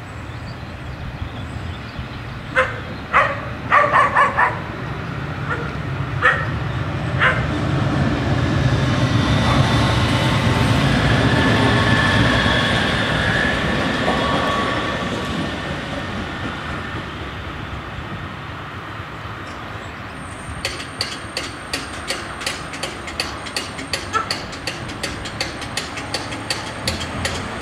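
A dog barks several times in the first few seconds. A Sirio tram then passes: a broad rumble with a steady whine that swells to a peak about ten seconds in and fades. From about twenty seconds in, the level-crossing bells ring with quick, even strikes, about three a second, as the barriers lift.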